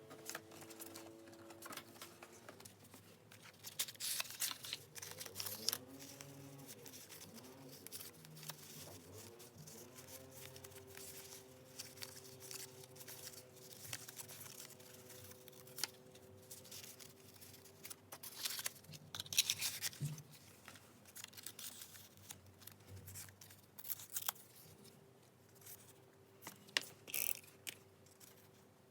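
Paper being handled and cut with scissors for journal decorating: irregular crisp rustles and snips that come in short bursts, the loudest a little past the middle.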